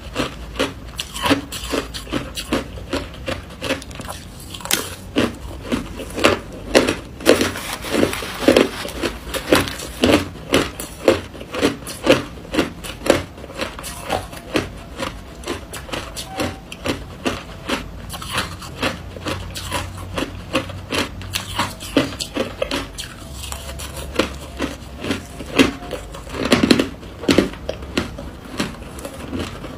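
Crushed ice being chewed close up: a steady run of sharp, crisp crunches, about two a second.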